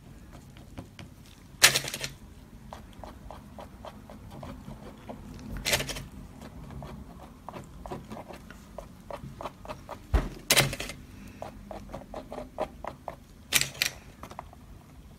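Cotton swab dabbing alcohol ink onto the painting surface: runs of light, quick taps, broken by a handful of louder knocks.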